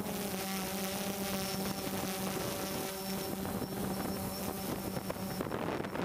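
DJI Phantom quadcopter's motors and propellers buzzing at a steady pitch, with a hiss over it; the buzz fades out about five and a half seconds in.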